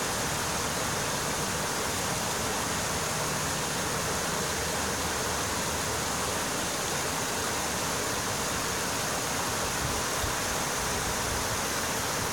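Shallow creek running over rocks and cobbles in a small riffle: a steady rush of water with no breaks.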